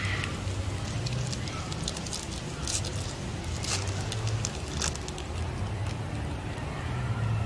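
Foil wrapper of a Chronicles football trading-card pack crinkling and being torn open by hand, with a few sharp rips around the middle.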